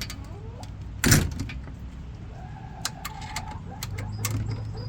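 A wooden chicken coop door being shut: one sharp knock about a second in, then scattered light clicks and knocks.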